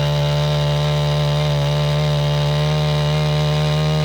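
Husqvarna 262XP two-stroke chainsaw running at steady high revs while cutting into wood, its pitch holding level throughout.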